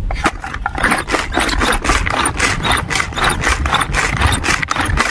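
Food being ground or chopped by hand: quick, even scraping and rubbing strokes, several a second, without a break.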